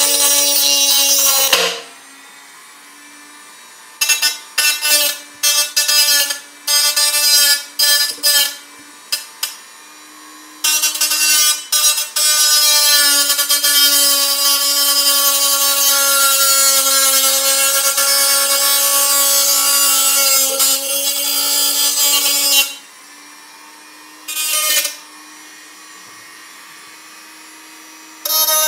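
A Black+Decker RT18KA rotary tool runs with a small cut-off disc grinding through a thin tin can, making a loud, high grinding whine. There is a short cut at the start, then a string of brief touches from about four to nine seconds, then one long steady cut of about twelve seconds, and another short touch and a new cut near the end. In the gaps only the tool's motor hum is left.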